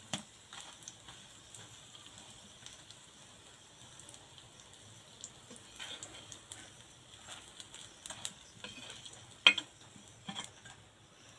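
Gram-flour-battered Malabar spinach leaf fritters sizzling faintly in oil on a flat iron pan, with light scrapes and clicks of a metal spatula lifting them off; one sharp clink about nine and a half seconds in.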